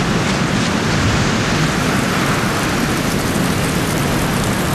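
Strong winter wind blowing through a snowstorm, a steady rushing noise with no breaks.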